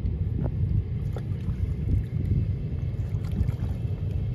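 A steady low rumble with a few faint light clicks above it.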